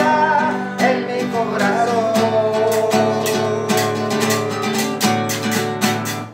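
Acoustic guitar strummed steadily while a man sings a long held note.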